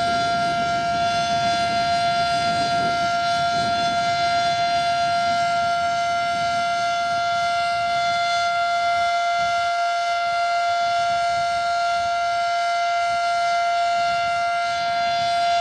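Federal Signal Model 5 civil defense siren sounding a steady, unwavering high tone. A low rumbling noise underneath fades out about nine seconds in.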